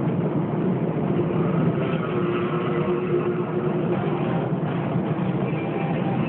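Airbus A320 jet engines at low power heard inside the cabin while the airliner taxis: a steady drone, with a faint whine in the middle.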